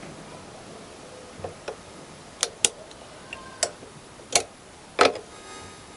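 A steel circlip being fitted to the motorbike's rear axle assembly: about seven sharp metallic clicks and clinks, irregularly spaced, as the clip and tool snap and tap into place.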